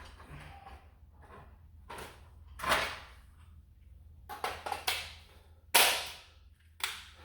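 Sharp plastic clacks and clicks of a cordless power-tool battery pack being pulled out of a saw and snapped into a drill: half a dozen separate knocks, the loudest about three seconds in and again near six seconds.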